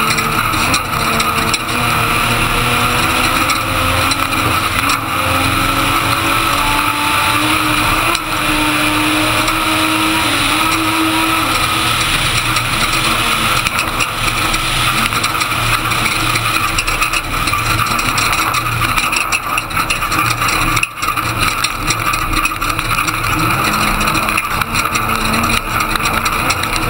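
Ford Ranger desert race truck running hard, heard from inside the cab: the engine's pitch climbs steadily for about ten seconds and then drops, over a constant rush of road and wind noise.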